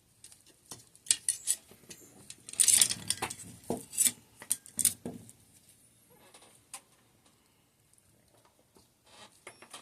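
Small metal shock-absorber parts clicking and clinking as they are handled and set down, with a dense clatter about three seconds in and only scattered clicks in the second half.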